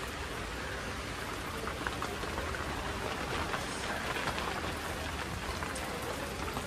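Steady hiss of rain falling, with a few faint scattered ticks.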